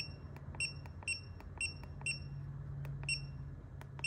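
Handheld OBD2 scan tool beeping at each press of its arrow key while scrolling a menu: about ten short high beeps, irregularly spaced, over a faint low steady hum.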